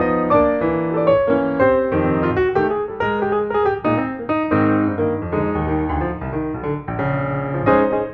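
Background piano music, a steady flow of short notes.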